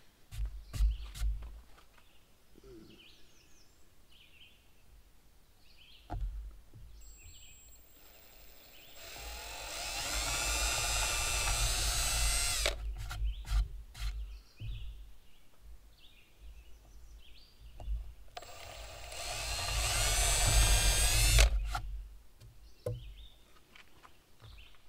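Cordless drill running into a pine cupboard door while the hinges and handles are fitted, in two runs of about three seconds each. Each time the motor whine rises in pitch as it spins up, then holds steady. Short knocks and clicks from handling the drill and door come between the runs, with faint birdsong.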